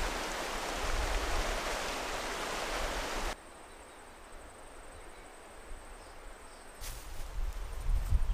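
River water rushing beneath a wire swing bridge for about three seconds, cutting off suddenly. A quieter stretch follows with a steady high insect buzz, and near the end wind rumbles on the microphone and long grass rustles as hikers walk through it.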